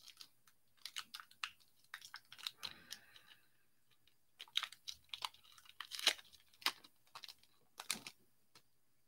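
Foil wrapper of a hockey card pack being torn open and crinkled in the hands: a run of sharp crackles and rustles in two spells, with a short lull about four seconds in.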